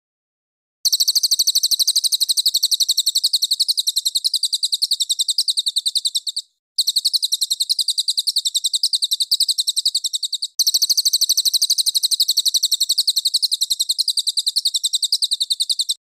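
A songbird's rapid trill of sharp, high notes repeated evenly at a fast rate, in three long bouts with brief breaks about six and a half and ten and a half seconds in.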